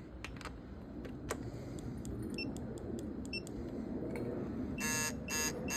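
A torque wrench ratcheting in scattered clicks as it tightens cylinder-head stud nuts. About five seconds in come two short beeps, like a digital torque wrench signalling its set torque.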